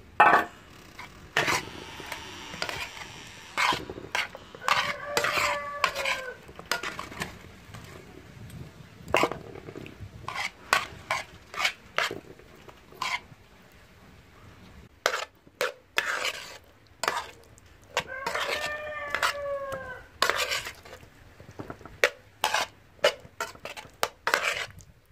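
A metal spoon clinks and scrapes against a metal pan in sharp, irregular knocks as it stirs chicken pieces through a thick sauce. A rooster crows twice, about five seconds in and again some thirteen seconds later.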